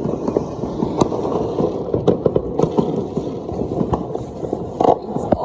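New Year fireworks going off all around: a dense run of pops and bangs over a continuous crackle, with sharper blasts about a second in and near the end.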